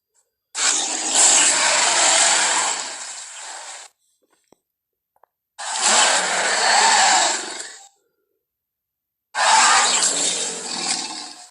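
Three Carnotaurus roars from a film's creature sound design, one after another with short silences between. Each is a harsh, raspy call that starts suddenly and fades away over two to three seconds.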